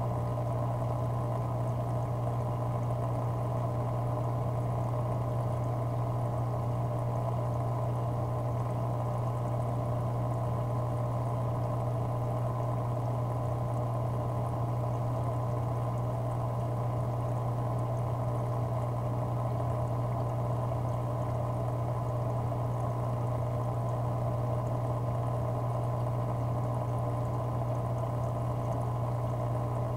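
Steady low hum with running, bubbling water: an aquarium pump running.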